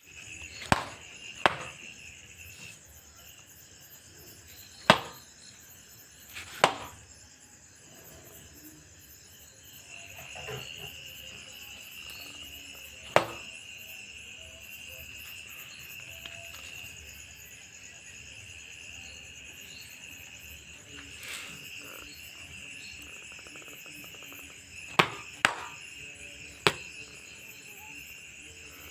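Sharp slaps of a sandal swatting mosquitoes, about eight in all at irregular intervals, two close together near the middle of the end stretch. Crickets chirr steadily throughout.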